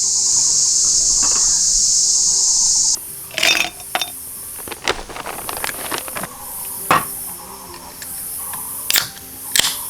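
A steady, high-pitched insect chorus that cuts off abruptly about three seconds in, followed by scattered sharp clicks and cracks.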